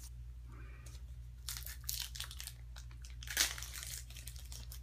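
Plastic wrapper of a baseball card pack crinkling and tearing as the pack is opened, in scattered crackles from about a second and a half in, loudest a little past the middle.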